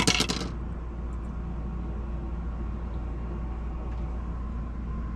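A few quick clicks and rattles as metal computer hardware is handled, then a steady low mechanical hum with a faint even hiss.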